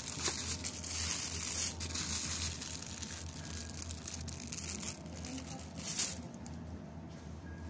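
Plastic produce bag of cucumbers crinkling as it is picked up and handled, with a second rustle about six seconds in as it goes into a plastic shopping basket. A low steady hum underneath.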